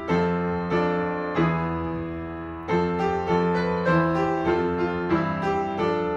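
Piano playing the school song's accompaniment: a steady run of struck chords and single notes, each ringing and then fading.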